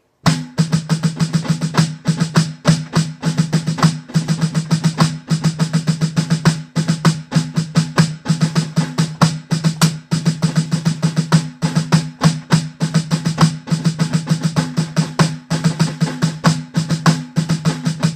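Rudimental snare drum solo played fast and loud with sticks on an electronic drum kit's mesh snare pad: a dense, unbroken stream of strokes with accents, stopping near the end.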